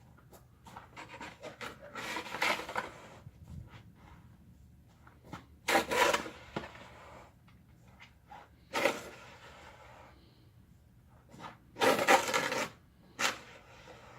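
Snow shovel scraping, in a series of separate rasping strokes a few seconds apart.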